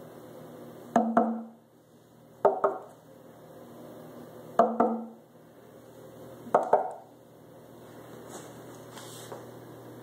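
Knocks on the wooden panels of an empty Klipsch Heresy speaker cabinet: four double raps about every two seconds, each ringing briefly, two of them with a low ring. The panels are being tested for resonance with and without an internal brace.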